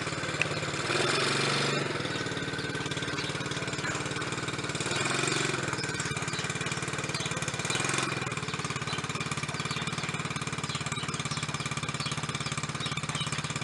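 Small quad bike (ATV) engine idling steadily, with three brief louder surges about one, five and eight seconds in.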